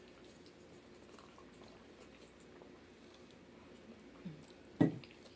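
Faint chewing and mouth sounds of eating noodles, with small scattered clicks. A single sharp knock, the loudest sound, comes near the end.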